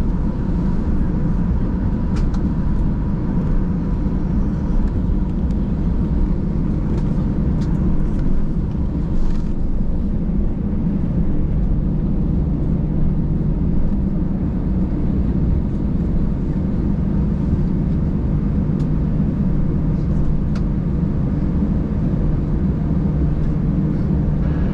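Steady cabin noise inside a jet airliner taxiing after landing: a low rumble and hum from the engines at taxi power and the wheels rolling over the pavement, with a faint steady whine and a few faint ticks.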